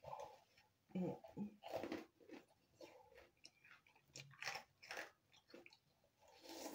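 Close-up crunching and chewing of crispy Japanese rice crackers, a string of irregular crisp bites.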